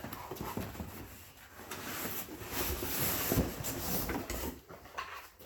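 Rummaging through a cardboard shipping box: packing material rustling and scraping, with a few light knocks as parts are handled.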